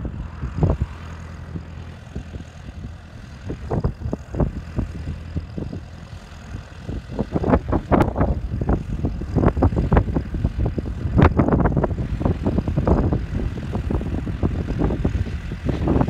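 Massey Ferguson 5435 tractor's four-cylinder diesel engine working under load as it pulls a plough, growing louder as it comes closer about halfway through. Irregular gusts of wind buffet the microphone over the engine hum.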